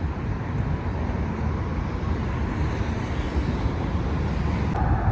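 Road traffic noise: a steady low rumble of passing vehicles. Near the end a steady single tone starts and holds.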